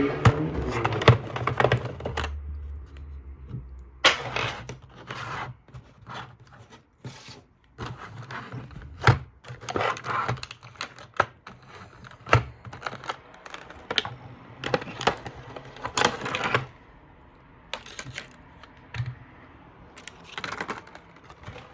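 A diecast model bus being taken out of its box: irregular clicks, knocks and short scrapes of handled plastic and cardboard packaging.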